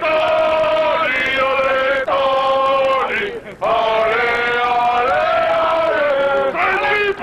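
Male singing: a slow melody of long held notes, with brief breaks about two and three and a half seconds in.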